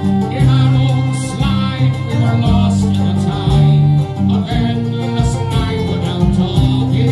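Live Irish folk band playing a ballad: acoustic guitars strumming and a fiddle, with a man singing over them.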